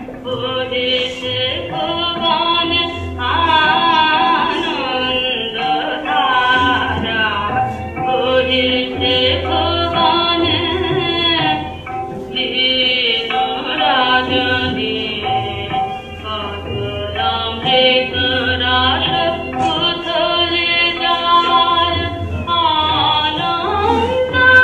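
Music: a voice singing a melody over instrumental accompaniment with a low, pulsing beat.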